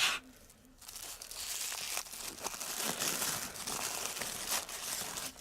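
Crinkly packaging around a blind-box toy figure being handled and pulled open, a continuous uneven rustling with small crackles.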